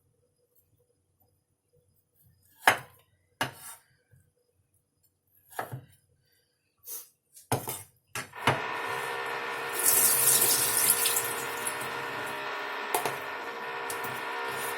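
A few separate knocks of kitchenware, then from about eight seconds in a kitchen tap running steadily into a sink, with a brighter splashing stretch a couple of seconds after it starts.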